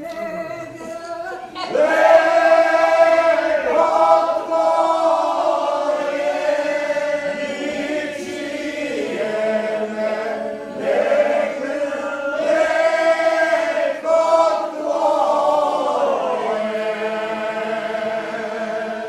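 Mixed group of men and women singing a traditional folk song together in long held phrases, the full group coming in loudly about two seconds in.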